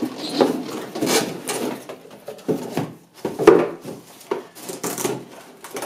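Handling noise from RC model airplane parts being picked up and moved: irregular rubbing and scraping with several light knocks and clicks.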